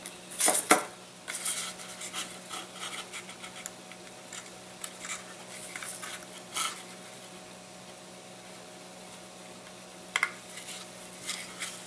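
Light scraping, tapping and rustling of thin balsa wood parts being handled and pressed together on a workbench, with a couple of sharp knocks about half a second in and another click near the end.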